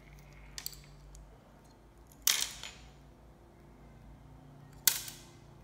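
Two sharp clacks of hard objects being handled on a workbench, about two and a half seconds apart, each with a short ringing tail, after a fainter double click; a faint low hum runs underneath.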